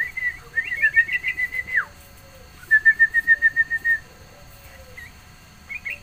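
Small songbird calling: a run of quick chirping notes that ends in a short downward slide. After a brief pause comes a rapid, even series of about nine piping notes.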